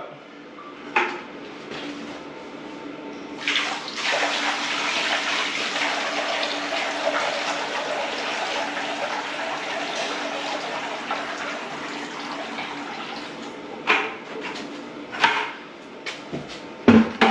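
A bucket of water poured into a waterproofed shower tray for a flood test: a steady splashing pour that starts a few seconds in and runs about ten seconds. A few sharp knocks follow near the end.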